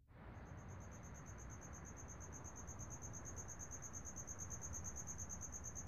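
A cricket chirping in a fast, steady trill of rapid pulses, over a low background hiss.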